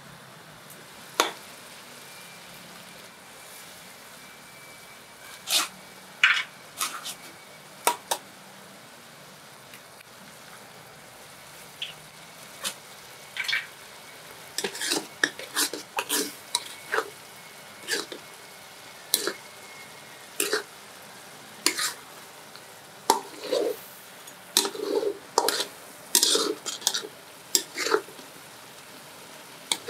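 Metal ladle scraping and clinking against a wok as giant river prawns in curry sauce are stirred, over a steady low sizzle. The strokes are scattered at first and come thick and fast in the second half.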